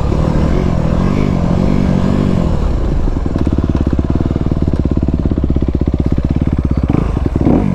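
2019 Honda CRF250RX dirt bike's single-cylinder four-stroke engine running under load on the trail. The revs rise and fall about a second in, then swing up and down again quickly near the end.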